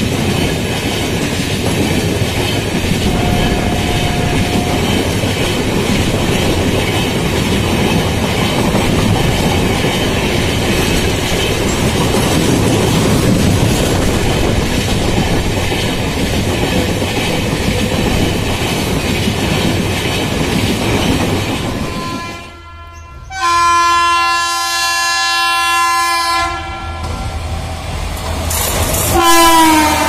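Indian Railways express coaches rolling past with a steady rattle and clatter of wheels on the rails. After a sudden break, a locomotive's multi-tone air horn sounds steadily for about three seconds. A second horn blast starts near the end, its pitch sliding slightly down.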